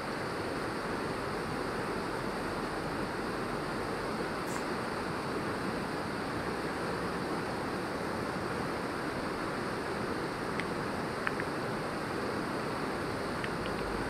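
Steady rushing of a fast mountain river over rocks, with a few faint clicks in the second half.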